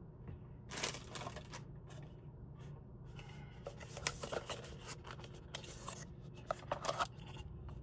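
Rustling and crinkling in irregular short bursts as the replacement blower motor for a ResMed AirSense 10 is picked up and handled, over a low steady hum.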